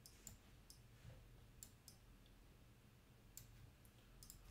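Near silence broken by a handful of faint, scattered clicks from a computer mouse and keyboard.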